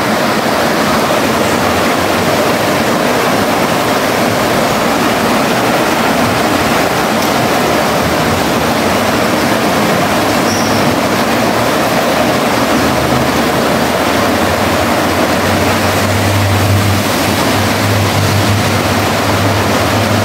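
Steady rush of flowing creek water mixed with falling rain. A low rumble joins in near the end.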